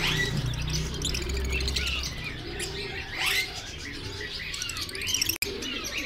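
A cage of lovebirds chirping, many short high chirps overlapping one another, over a low steady hum.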